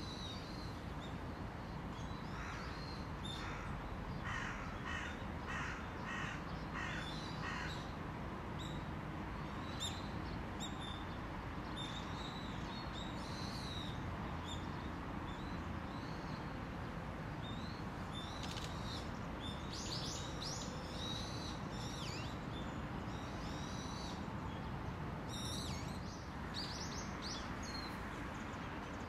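A crow cawing a run of about eight evenly spaced caws in the first several seconds, with short, thin, high chirps from small birds scattered through the rest, over a steady low background hum.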